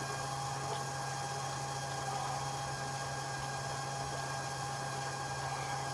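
Steady machine hum with a constant low drone and a thin, even whine above it, unchanging throughout.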